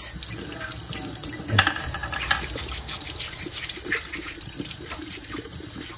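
Tap water running into a sink over a small metal combi-boiler filter being scrubbed with a toothbrush, with scattered small ticks and one sharp click about one and a half seconds in.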